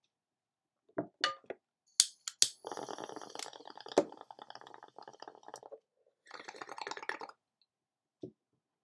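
A few sharp clicks, then a glass bong bubbling as smoke is pulled through the water: a long crackling gurgle of about three seconds, a short pause, and a second, shorter pull of about a second.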